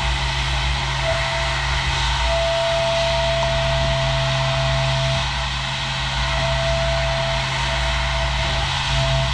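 Heller HF5500 five-axis horizontal machining center milling an EV gear housing: spindle and cutter running steadily through the cut. A low hum runs under a thin whistling tone that fades in and out.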